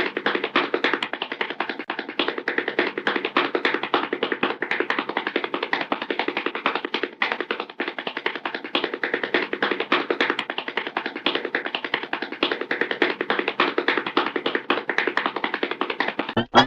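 Hanna-Barbera cartoon running sound effect: a long, unbroken patter of rapid, even taps standing for fast footfalls, lasting about sixteen seconds.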